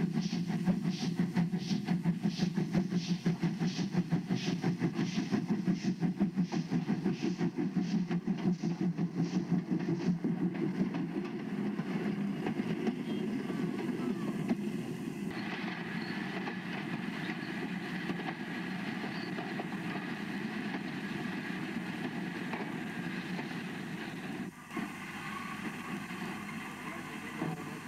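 Steam locomotive hauling a passenger train, its exhaust beats about two a second over a steady rumble, fading out about a third of the way through as the train draws away. The sound then changes abruptly to a steady running noise of the train, broken off suddenly once more near the end.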